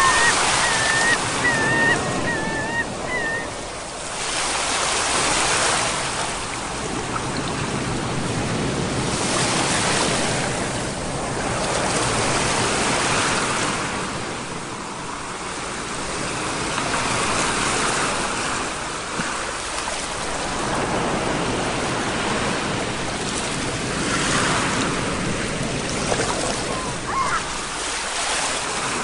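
Ocean waves breaking on a shore, the surf swelling and easing every few seconds. A short high wavering call sounds in the first few seconds.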